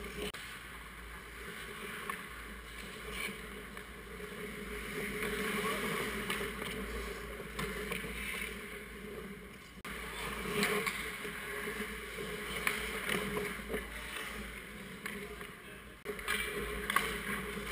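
Ice hockey rink ambience close to the net: skate blades scraping and carving on the ice, with scattered sharp clicks and knocks of sticks and puck, and faint shouts from players.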